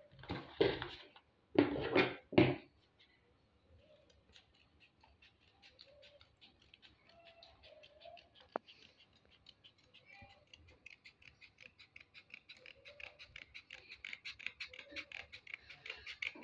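A sheet of paper handled and creased by hand, with a few loud crinkles in the first couple of seconds. Then a pair of scissors cuts along the paper in quick, repeated snips that grow louder towards the end.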